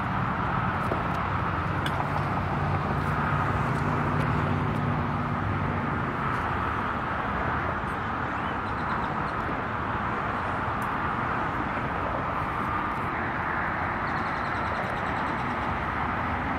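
Steady outdoor background noise with a low engine-like hum from a vehicle, most pronounced through the first six seconds or so, then fading into the general hiss.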